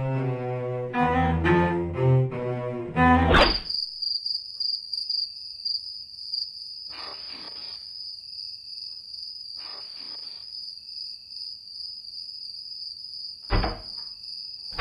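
A short bowed-string music cue, low cello and double bass notes, for the first three or four seconds. After it comes a steady high-pitched whine, with a couple of faint soft noises and a brief knock near the end.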